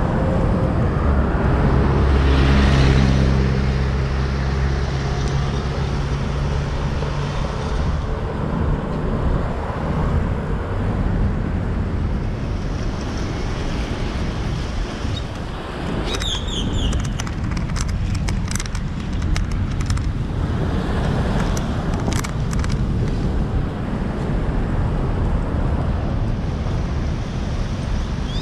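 Road traffic with a steady rush of wind and street noise. A motor vehicle's engine passes close about two to three seconds in, the loudest moment. A few short, high, falling chirps sound about sixteen seconds in.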